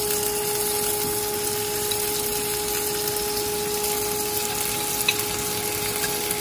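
A steady machine hum with an even hiss from a kitchen appliance, and a faint tick or two of chopsticks against a bowl.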